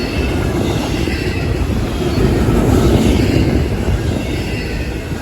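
Freight cars of a CSX intermodal train rolling past close by: a steady rumble of steel wheels on rail with faint high wheel squeal, swelling a little about two seconds in.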